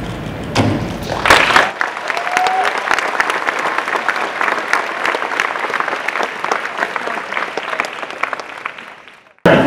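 Audience applauding, at its loudest just over a second in, then the clapping thins and dies away near the end.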